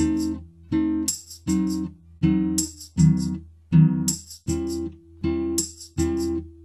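Background music: a strummed acoustic guitar with a steady beat, about one chord every three-quarters of a second, with a high rattle on some beats.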